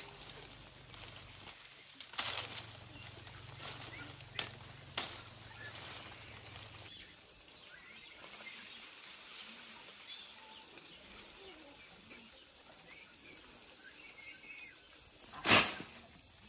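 Outdoor ambience with a steady high-pitched hiss. A few sharp clicks come in the first five seconds, and one louder knock comes near the end.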